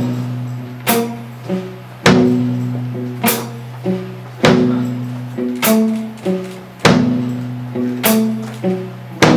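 Live band playing an instrumental passage: guitar notes ring over a low held tone, with a sharp drum hit about every 1.2 seconds.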